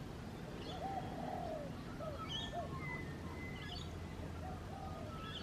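Dawn birdsong with several birds calling at once: a low, arching call repeated several times beneath higher chirps and a thin, steady whistle.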